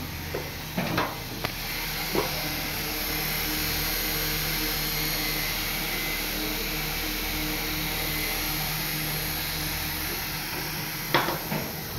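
Steady mechanical hum, one even drone, with a few short clicks and knocks near the start and again about a second before the end.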